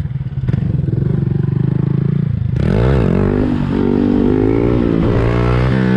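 Honda Grom's 125 cc single-cylinder four-stroke engine running at low revs, then sharply revved about two and a half seconds in as the front wheel comes up into a wheelie. The revs then rise and fall several times as the throttle is worked to hold the wheelie.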